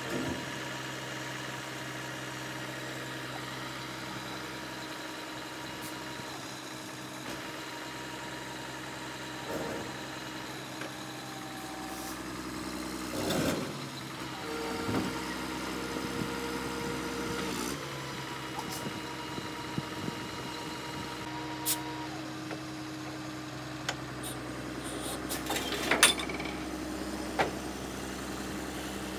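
Roll-off dumpster truck's diesel engine idling steadily, with several short metallic knocks in the second half, the loudest a few seconds before the end.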